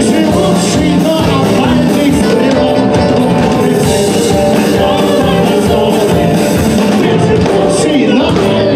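Live band performance of a song: a male vocalist singing over acoustic guitar and band accompaniment, with no pause.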